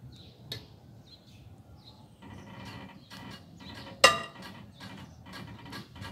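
Breaker bar on a hex bit loosening a front axle collar bolt: light clicks and scraping of the tool, then a single sharp metallic crack with a brief ring about four seconds in, typical of the tight bolt breaking loose.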